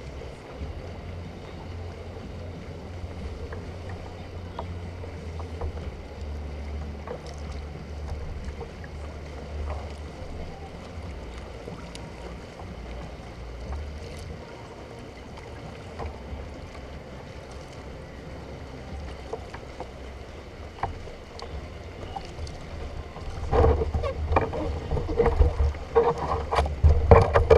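Kayak on open water: water lapping at the hull over a low wind rumble on the microphone, then a run of louder, irregular splashes and knocks near the end.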